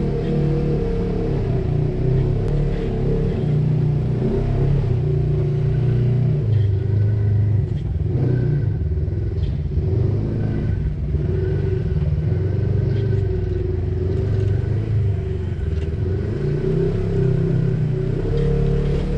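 Polaris RZR side-by-side's engine running at low revs as it crawls over rocks, its pitch rising and falling with the throttle.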